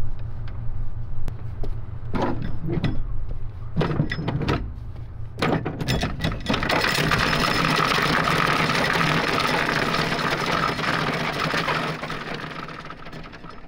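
Anchor chain paying out over the bow windlass: a few metal clanks, then a loud, steady rattling clatter of chain running out for about five seconds that dies away near the end.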